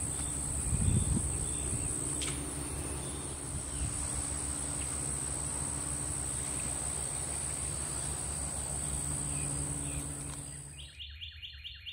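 Steady high-pitched insect buzzing over outdoor ambience. It cuts off just before the end, where a quick run of evenly spaced chirps begins.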